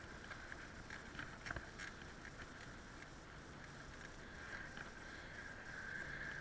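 Bicycle riding noise on a lane: a steady hiss of tyres and air, with a few sharp clicks and rattles from the bike between one and two seconds in.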